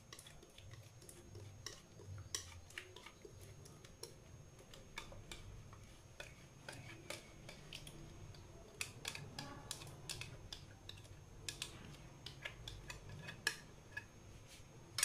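Faint, irregular clicks and light scraping of a small spoon against the mixing bowl as the last of the cake batter is scraped out into the pan.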